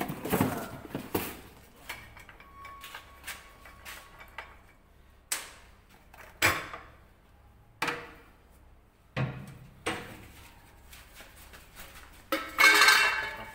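Sharp knocks and clatters from the compressor's round suction air filter elements being handled and struck by hand while the suction filter is changed, about half a dozen separate hits, then a louder scraping rustle near the end.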